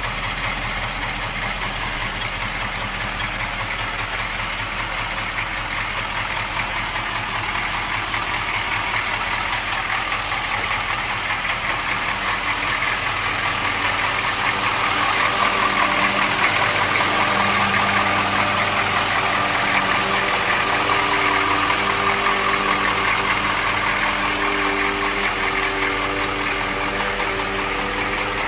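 An engine running steadily at idle, getting a little louder around the middle.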